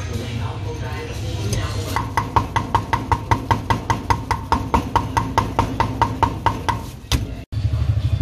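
A steel cleaver chopping raw beef on a wooden chopping block, mincing it in fast, even strokes about five a second, each with a short ring. The chopping starts about two seconds in and stops near the end, over a steady low hum.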